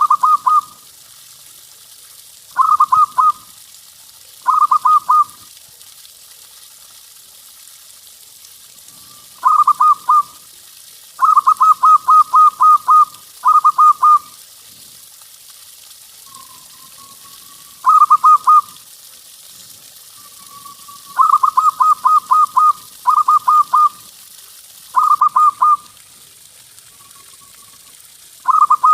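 Zebra dove (perkutut) singing: about a dozen bursts of quick, evenly spaced cooing notes, each burst three to eight notes long, separated by pauses of one to four seconds, with a few softer drawn-out coos in between. Faint steady hiss underneath.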